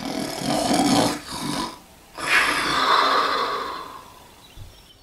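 A person snoring, two long snores, the first with a low rattling buzz and the second breathier, fading away near the end.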